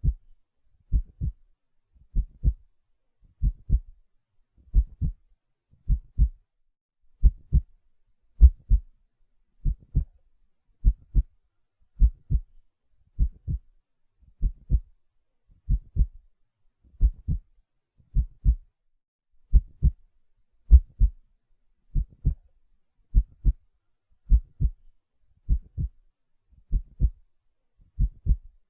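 Heartbeat: a slow, steady double thump (lub-dub), low and deep, about one beat every 1.2 seconds.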